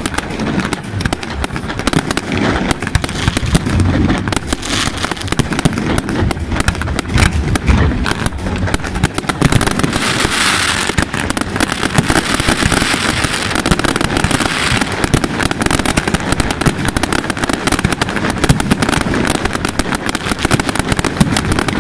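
Aerial fireworks display: a continuous barrage of shell bursts and dense crackling, with a brighter hissing, crackling stretch about ten seconds in.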